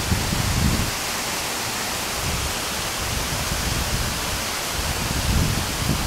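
Steady rushing of a nearby waterfall, an even hiss with no pauses. Low rumbles, like wind or handling on the microphone, come in briefly at the start and again near the end.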